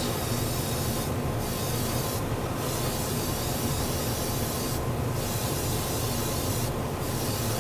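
Airbrush spraying a light mist coat of thinned primer: a steady hiss of air and paint that drops out briefly four times between passes, over a steady low hum.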